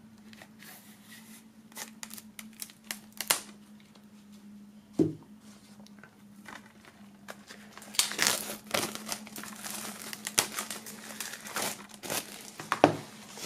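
Plastic shrink-wrap being torn open and peeled off a CD digipack. Scattered scratches come first, then a single knock about five seconds in, then dense crinkling from about eight seconds on.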